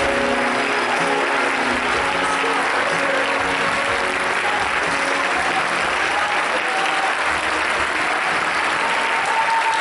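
An audience applauding steadily at the end of a sung duet, with the last notes of the song's accompaniment fading out in the first couple of seconds.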